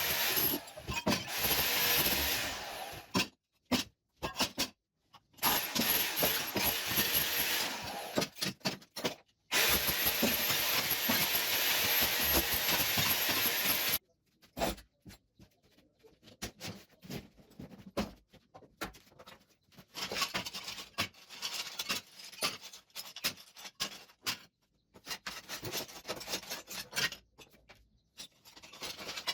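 An electric power tool running in bursts of a few seconds with a high motor whine, followed about halfway through by quieter, irregular scraping against the wall.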